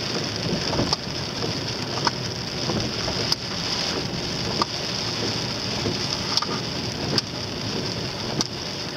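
Car cabin noise while driving on a wet road: a steady hiss of tyres and road, with scattered sharp ticks.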